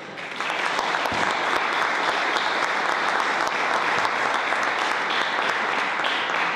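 Audience applauding, beginning about half a second in, holding steady, and dying away at the end.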